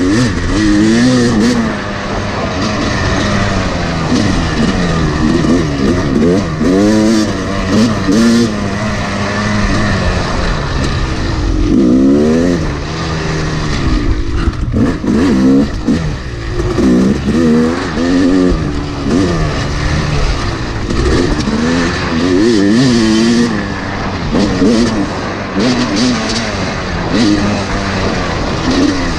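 2011 Yamaha YZ250 two-stroke dirt bike engine being ridden hard, its pitch rising and falling over and over as the throttle is opened and shut every second or two.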